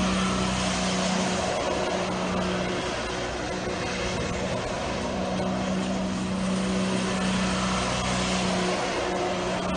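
Engine of a driverless flatbed truck running steadily at a constant pitch as the runaway truck keeps circling on loose dirt, over a steady rush of wind and tyre noise.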